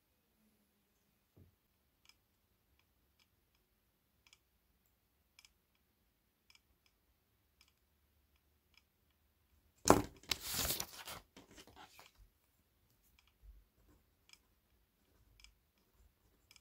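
Faint, evenly spaced ticks about once a second, like a clock ticking. About ten seconds in comes one loud noisy burst lasting a second or so.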